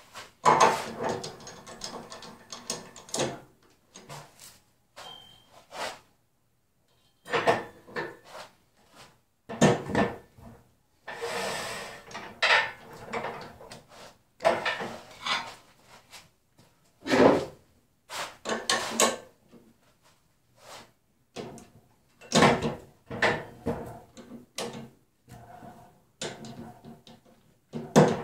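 Irregular knocks, clunks and scrapes of a wooden mulberry bowl blank and cast-iron lathe parts being handled, with the lathe switched off: the blank is being set into a four-jaw chuck and the tailstock slid up along the bed and locked.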